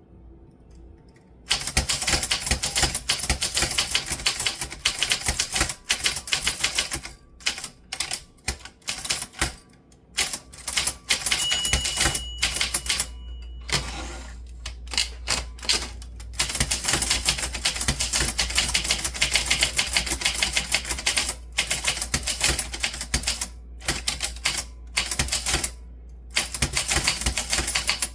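Typewriter keys striking in fast runs of rapid clicks, starting about a second and a half in, with short pauses between runs.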